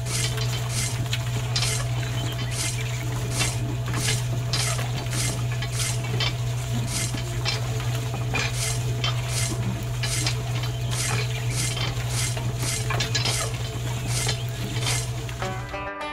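Small electric motor of a miniature DIY tractor running with a steady hum, with irregular clicks and light rattles about one or two a second; the hum cuts off near the end.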